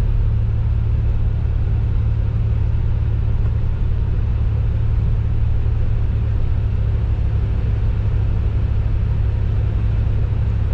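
Old car driving on a snow-drifted road: a steady low rumble of engine and tyres, heard from inside the cabin.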